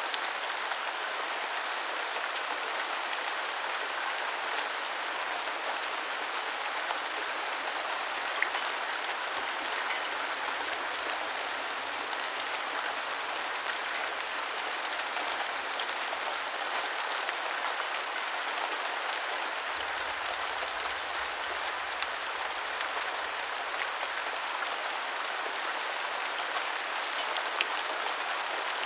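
Steady rain with close, fine drop patter, an even hiss of falling water with many small drop ticks.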